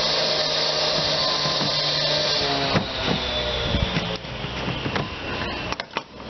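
Concrete-cutting saw running with a steady whine and hiss, easing off about three seconds in and wavering, with a few brief dropouts near the end.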